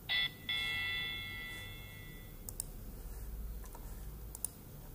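An electronic notification chime from a computer: a short note, then a higher ringing tone that fades away over about two seconds. A few faint mouse clicks follow near the end.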